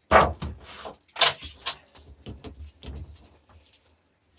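Plastic and metal parts of a PC monitor being pulled apart and handled: a sharp knock at the start, another about a second in, then lighter clicks and scrapes.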